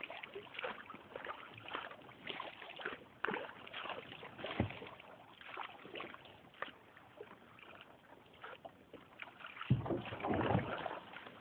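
A canoe being paddled through floodwater: the paddle dips and splashes in irregular strokes, with drips running off it. The sound grows louder for about a second near the end.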